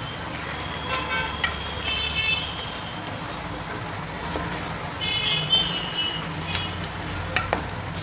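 A spatula stirring chicken curry in a metal handi pot, with a few clicks of the spatula against the pot over a low steady hum. Vehicle horns toot twice, about two seconds in and again about five seconds in.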